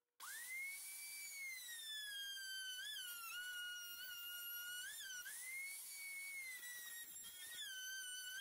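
Table-mounted router starting up with a high whine that climbs quickly in pitch. It then drops in pitch under load as its flush-trim bearing bit cuts a pine block flush to a curved plywood template, picks back up in the middle as the cut eases, and drops again near the end.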